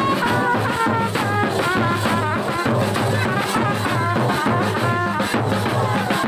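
Loud festive band music for dancing: drums keep a steady beat under a wavering, horn-like melody.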